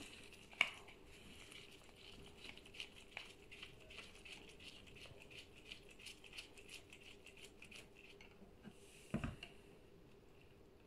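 A screwdriver turning a small screw out of the plastic housing of a Samsung PowerBot robot vacuum: a faint run of small clicks and light scraping. A single louder knock comes about nine seconds in.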